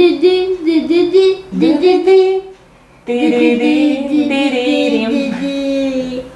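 A voice singing a tune unaccompanied, in two phrases of held notes with a short pause about two and a half seconds in.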